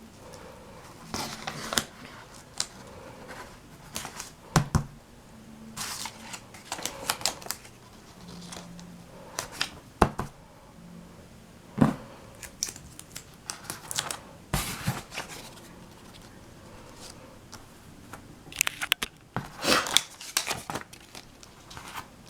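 Paper bills and sticky tape being handled: irregular rustling and crinkling, with scattered sharp taps and knocks as the taped bills are pressed onto a poster board.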